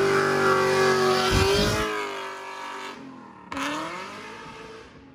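Third-generation Chevrolet Camaro's engine held at high revs in a burnout, with the rear tires spinning and squealing. The engine note drops away about two seconds in, and a shorter rev comes and fades near the end.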